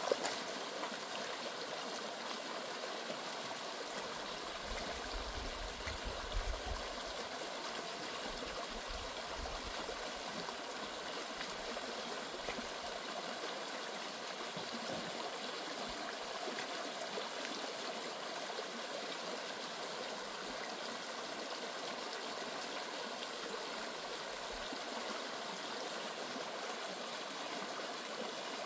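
Stream water running steadily, with a brief low rumble about five to seven seconds in.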